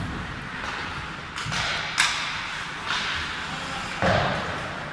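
Ice hockey play: skate blades scraping the ice in repeated short strokes, a sharp crack of a stick on the puck about two seconds in, and a heavier thud about four seconds in.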